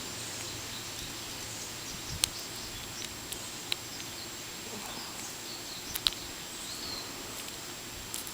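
Lock pick clicking against the pin tumblers inside a small padlock as the pins are worked and set: a few light, sharp clicks spread out irregularly, the loudest about six seconds in, over a steady hiss.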